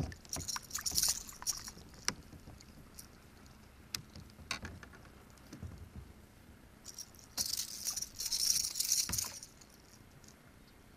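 Light clicks and rattles of fishing tackle and lure being handled while a small bass is unhooked in a kayak, with a louder hissing, rattling stretch of about two seconds some seven seconds in.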